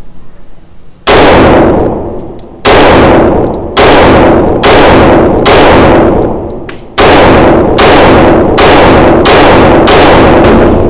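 Ten pistol shots from a Staccato C2 Duo 2011 firing Federal 115-grain full metal jacket 9mm, in two strings of five about a second and a half apart, each shot followed by a short echo off the indoor range. The pistol cycles all ten rounds without a stoppage.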